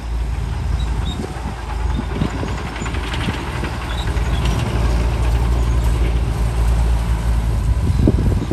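Diesel engine of heavy earthmoving machinery, a bulldozer or dump truck, running with a steady low rumble that grows a little louder in the second half.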